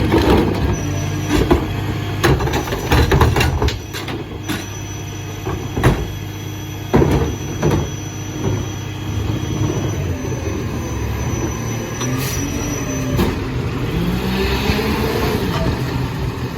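Dennis Eagle AirFlo rear-loader garbage truck running, with repeated metallic clanks and bangs in the first part and a rising whine near the end.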